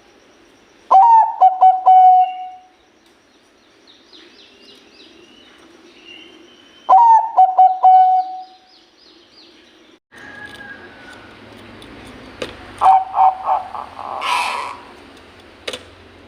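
Zebra dove (perkutut, Bangkok strain) singing: two loud phrases of quick, clipped cooing notes about six seconds apart, then a shorter cooing phrase near the end. Fainter high chirps of other small birds sound between the phrases.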